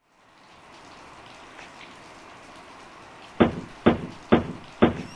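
Steady rain hiss, then four sharp knocks on a wooden door about half a second apart, struck with a pipe wrench.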